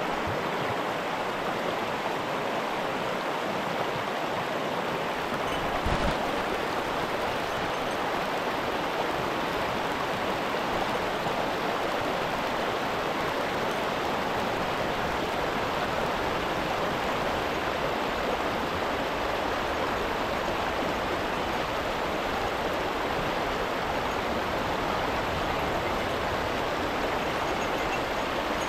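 Mountain stream rushing over rocks in a gorge, a steady, even rush of water. There is a brief low thump about six seconds in.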